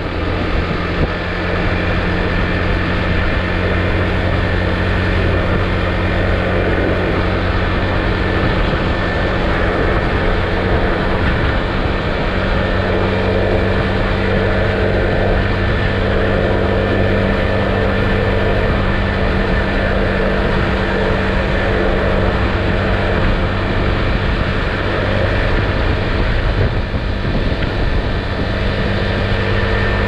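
Husqvarna Svartpilen 401's single-cylinder engine through its stock exhaust, cruising at a steady speed on the motorway.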